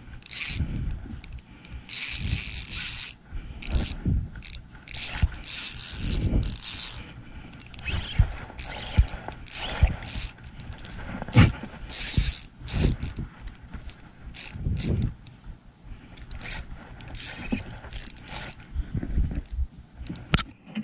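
OXGN Musky fishing reel working against a hooked fish: its drag and gears clicking and whirring in irregular runs as the fish pulls.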